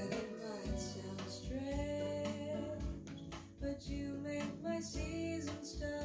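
Music played back through Revel PerformaBE M126BE bookshelf speakers (beryllium tweeter, ceramic woofer): a song with guitar, a held melody line and a steady low bass beat.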